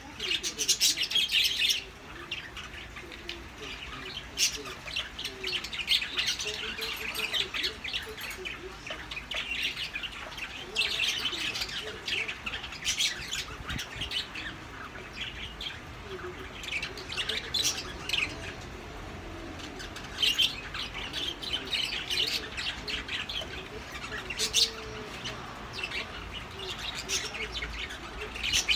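Birds chirping and squawking on and on, with a few sharp clicks now and then.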